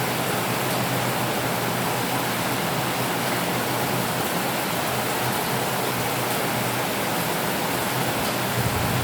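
Steady rain falling, an even hiss. A low rumble swells slightly near the end.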